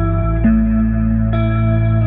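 Background music: sustained notes over a steady deep bass, the chord changing about half a second in and again a little over a second in.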